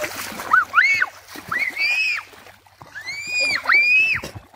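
A bird calling: about six high whistled calls in pairs, each rising, holding and falling.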